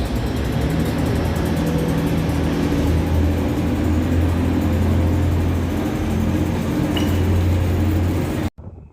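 Large vehicle engine running steadily with a deep hum. It cuts off abruptly near the end.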